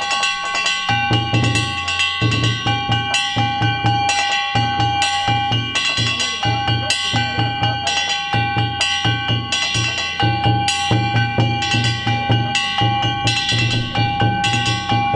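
Danjiri festival music: a taiko drum beaten in a fast, steady rhythm under the ringing strikes of hand-held gongs.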